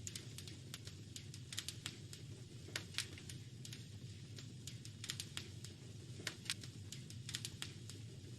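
Wood fire in a fireplace crackling: irregular sharp pops and snaps over a low steady rumble.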